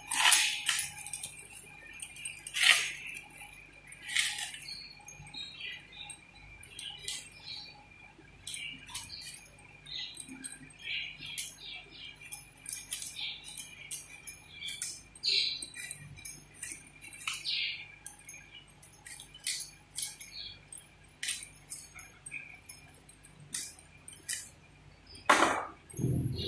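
Pumpkin being cut on a boti, a floor-mounted curved blade: irregular short crunches and scrapes as the rind is pushed through the blade, mixed with the light clinking of glass bangles on the cutter's wrists.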